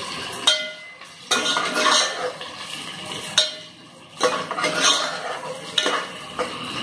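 Steel spoon stirring sliced onions in hot oil in an aluminium pot, scraping and clinking against the metal in several bouts with short pauses between them.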